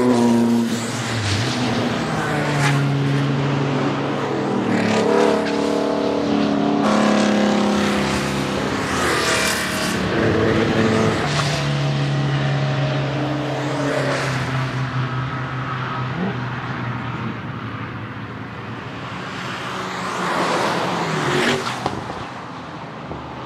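Race car engines revving hard as several cars pass one after another. The engine pitch climbs, drops at each gear change and swells and fades as each car goes by.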